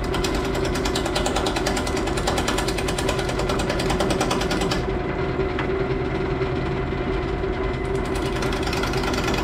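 Thompson bowl gouge roughing an out-of-round, unbalanced Leyland cypress blank on a Jet JWL-1236 lathe at about 500 RPM: a rapid, even chatter as the edge hits the high spots each turn, over the lathe motor's steady hum. The chatter eases off for a few seconds in the middle, then resumes.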